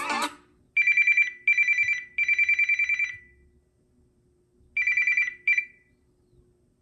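Samsung Galaxy A33 5G stock ringtone imitating an old electric telephone bell: rapid, high trilling rings in three bursts, a pause, then one more ring and a short clipped one.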